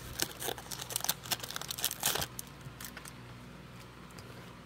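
Foil wrapper of a Panini Prizm basketball card pack crinkling as the cards are pulled out and handled. It goes quiet a little over two seconds in.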